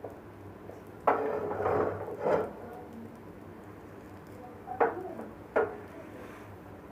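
A kitchen utensil scraping and clattering against a frying pan for about a second and a half, then two sharp knocks a little under a second apart.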